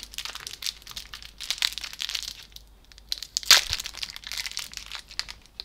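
Plastic wrapping on an NShot nicotine shot crinkling and tearing as it is worked open by hand, in a run of small crackles with one sharper crack about three and a half seconds in.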